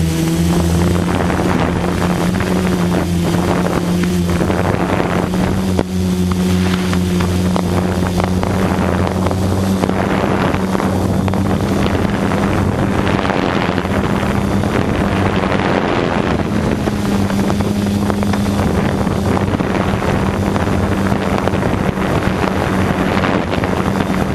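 Quadcopter drone's motors and propellers humming steadily, with the pitch shifting slightly partway through, and wind buffeting the drone's microphone.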